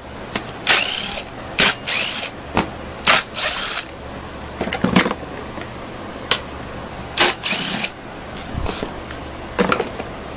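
Cordless drill-driver running in repeated short bursts, its motor pitch rising and falling, as it backs out the screws of a Tanaka ECS 3300C chainsaw's recoil starter cover. Clicks and knocks of the plastic housing being handled fall between the bursts.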